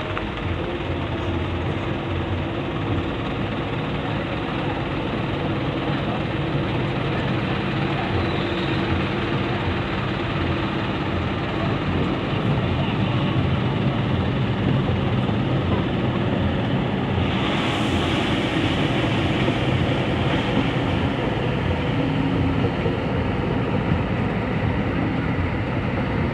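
Heavy diesel engines of an excavator and dump truck running steadily, a deep continuous rumble. A brief hiss cuts in about two-thirds of the way through.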